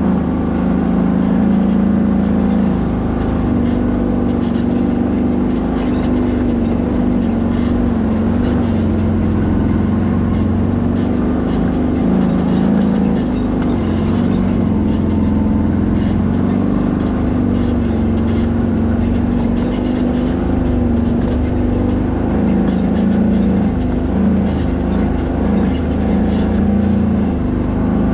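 ATV engine running steadily while riding a dirt trail, its pitch rising and falling slightly with the throttle. Frequent small clicks and rattles as the machine goes over the bumps.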